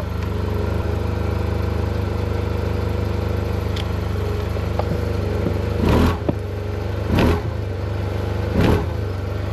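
Motorcycle engine idling steadily, briefly revved three times in the second half.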